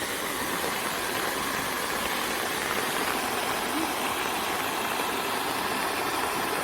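Steady rushing water of a mountain stream pouring over a small waterfall among rocks.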